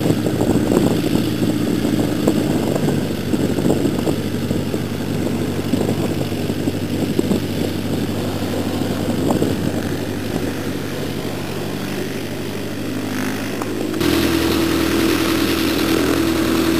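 Jodel D18 light aircraft's propeller engine running steadily as it rolls on the grass runway and passes close by. About three seconds before the end the engine becomes suddenly louder and stronger, as it runs at higher power for a take-off hop.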